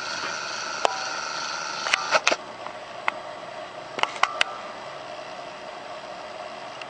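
Hands handling a tablet computer, with scattered sharp clicks that come in small clusters about two and four seconds in, over a steady hum. A higher whine runs under the first two seconds and stops.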